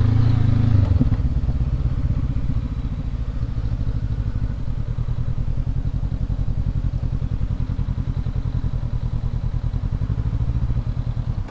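Honda CB500X's parallel-twin engine running at low revs as the motorcycle rolls slowly across a parking lot, a little louder in the first second and then steady and pulsing. Its sound drops away sharply near the end.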